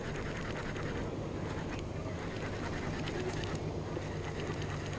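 Steady wind and ocean noise at an open sea pier, a constant low rumble, with faint light ticks scattered through it.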